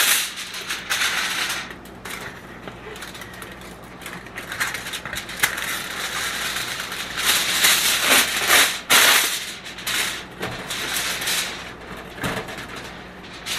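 Sheet of aluminum foil crinkling and crackling in irregular bursts as it is handled and pressed over a smoker's drip pan. The loudest crinkling comes about seven to nine seconds in.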